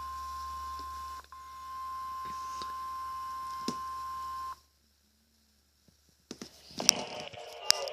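NOAA Weather Radio warning alarm tone, the 1050 Hz weekly test signal: one steady high beep held for about four and a half seconds with a brief dropout about a second in, then cut off sharply. After a moment of near silence, crackling noise with a couple of sharp clicks comes in from about six seconds in.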